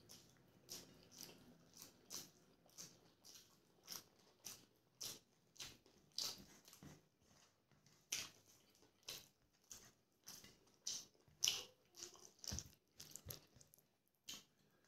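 Close-miked chewing of rice and chicken curry: a run of short, sharp mouth clicks and smacks, about two a second.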